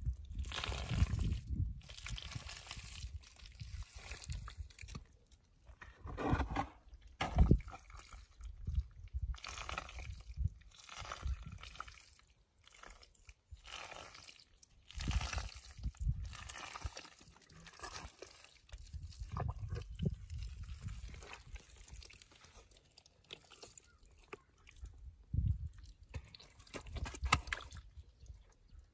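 Gloved hands digging and scooping wet mud, making irregular squelching and sloshing sounds.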